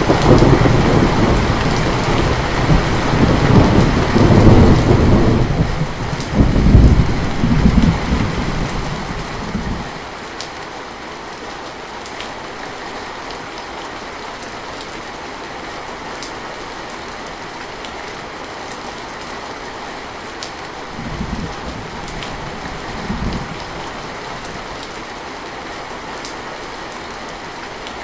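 Steady heavy rain, with a long roll of thunder that is loudest at the start and dies away about ten seconds in. Two short, fainter rumbles of thunder come later on.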